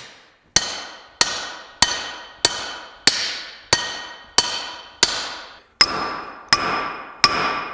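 Steady hand-hammer blows on a steel drift bar set against the stuck sow block key of a Beaudry power hammer's anvil: about three sharp, ringing metal strikes every two seconds, each ringing on until the next. The key does not move under the blows.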